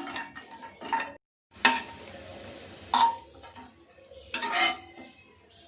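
A spoon clinking and scraping against a metal pan while cashews fry in ghee, with a faint steady sizzle. The sound cuts out for a moment about a second in, and there is a louder scrape past the middle.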